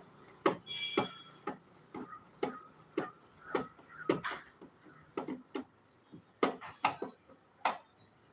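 A run of sharp knocks and clicks at uneven spacing, roughly two a second, some with a short ringing tone, from hands and tools working on a top-load washing machine.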